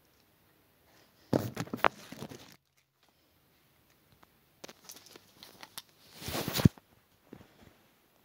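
Bubble wrap packaging being handled, crinkling and rustling in two bursts with a few sharp clicks; the first burst cuts off abruptly and the second is louder near its end.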